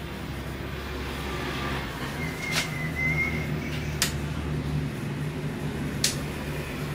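Steady low background hum, with three sharp clicks about a second and a half to two seconds apart and a faint thin high whistle around the first click.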